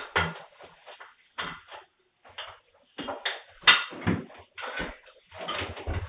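Irregular knocks, thumps and clatter, a dozen or so sharp hits with the sharpest about two-thirds of the way through, heard through a doorbell camera's microphone.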